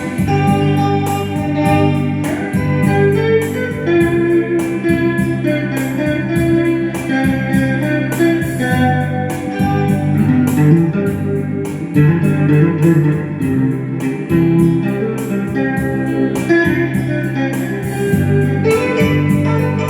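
Instrumental music: a guitar playing a melody over a bass line and a steady beat.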